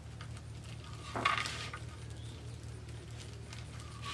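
Hands handling black poly deco mesh on a metal wire wreath frame: light rustling and small metallic clinks, with one louder rustle about a second in, over a faint steady low hum.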